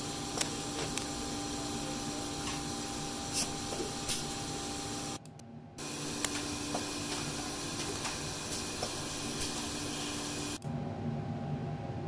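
A pick-and-place machine running: a steady mechanical hum with a high hiss and a few sharp clicks. It breaks off briefly about five seconds in, and near the end the hiss drops away, leaving the hum.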